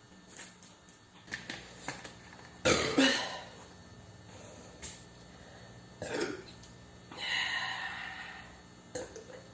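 A woman burping several times: a loud, sudden belch about three seconds in, a shorter one around six seconds, and a longer drawn-out belch near the end.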